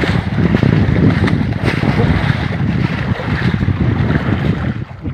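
Loud wind rumbling on a phone's microphone on a small outrigger boat at sea, with water sloshing and a few light knocks.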